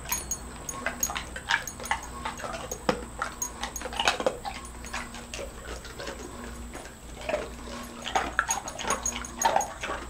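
Great Dane chewing ice cubes: irregular, sharp crunching cracks throughout, with a few short dog whimpers.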